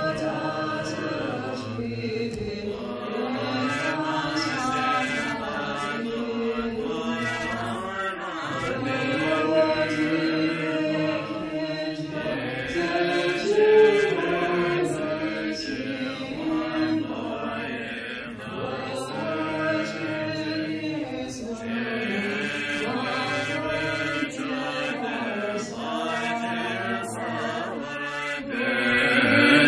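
Buddhist chanting: voices reciting a prayer in one continuous chant, the pitch rising and falling.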